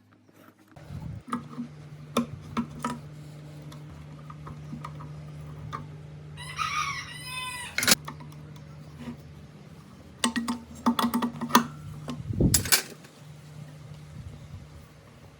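Workshop sounds: a steady low hum with scattered metallic clicks and knocks, loudest in a cluster near the end. A rooster crows once, briefly, about halfway through.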